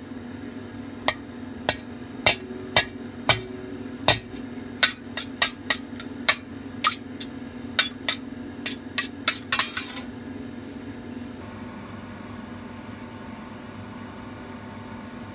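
Eggs being beaten in a stainless steel bowl: a utensil strikes the metal about twenty times with sharp clinks, coming faster toward the end and stopping about ten seconds in. A steady low hum runs underneath.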